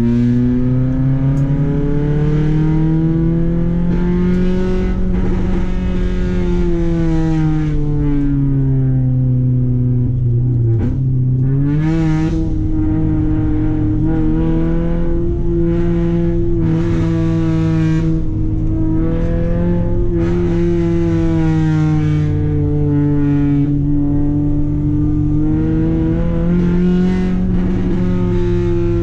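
Honda H22A Euro-R 2.2-litre VTEC four-cylinder engine, breathing through a 4-2-1 header and 3-inch piping, heard from inside the car's cabin as it is driven. Its pitch rises and falls with the throttle, with a brief break and a quick rise about ten seconds in.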